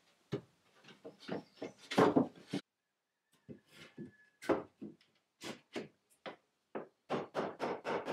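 Wooden wall board knocking and clattering against a timber frame as it is set in place, then a series of hammer taps on a wooden wedge that drive the board tight, coming faster near the end.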